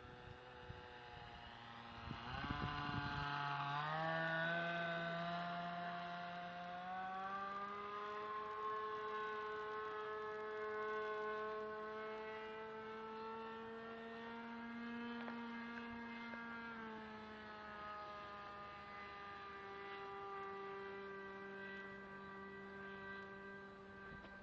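Radio-controlled model airplane's engine running in flight, a buzzing note that rises in pitch and is loudest a few seconds in as the plane passes close. It then holds a steadier, fainter note that shifts slightly in pitch about two-thirds of the way through.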